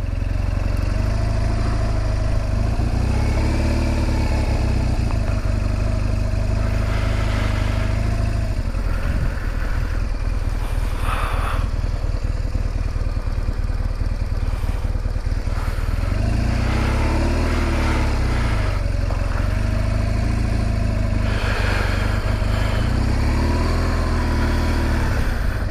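BMW R1200GS boxer-twin engine running on the road, its pitch rising and falling several times as the bike speeds up and slows, over a steady low rumble.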